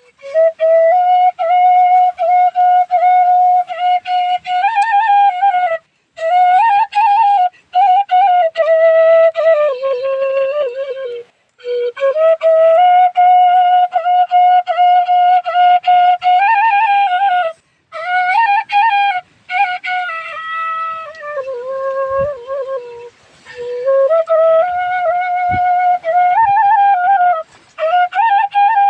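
Bansuri (bamboo flute) playing a slow solo melody: long held notes and short ornamented turns, broken by brief pauses for breath.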